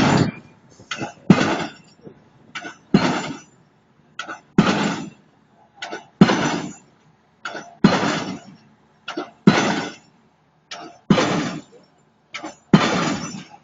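Hydraulic impact hammer driving a pile in steady, regular blows, about one every second and a half. Each blow is a short knock followed by a louder, longer metallic crash that dies away.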